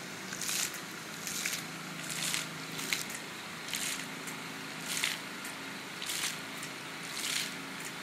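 Water fountain jets splashing in short hissy bursts about once every second or so, over a steady low hum.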